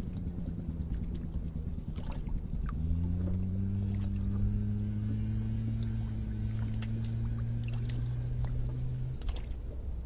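Water bubbling at a lake's edge, with small scattered pops and clicks. A low steady hum comes in about three seconds in, rising slightly at first, and stops shortly before the end.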